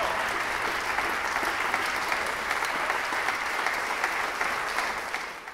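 Concert audience applauding, a dense, steady clapping that fades out near the end.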